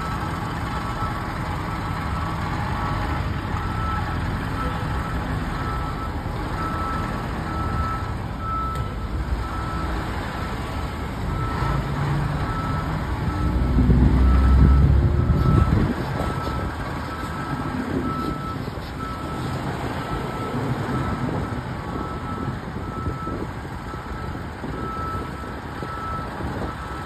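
Fire truck backing up with its backup alarm beeping steadily over the running diesel engine. A louder low engine rumble swells for about two seconds midway.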